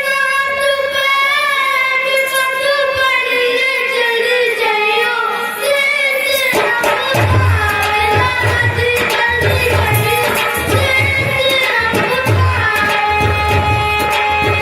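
A solo voice singing a devotional song in long, ornamented held notes. About halfway through, a steady hand-drum rhythm comes in under the singing.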